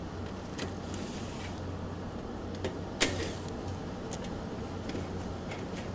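Low steady hum with scattered light clicks and one sharper knock about three seconds in, from a rooftop HVAC unit's access panels and filters being handled.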